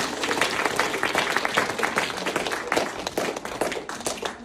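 Audience applauding: many dense, irregular hand claps that start just before and thin out near the end.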